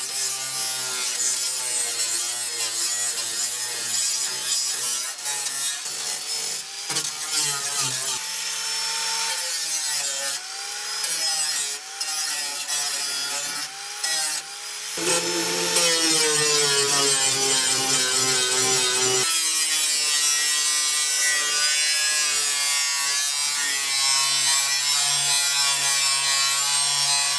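Angle grinder with a grinding disc working the rusted sheet-steel floor pan, searching for soft rusted metal. Its whine dips and rises as the disc bites, with a few abrupt changes in tone along the way.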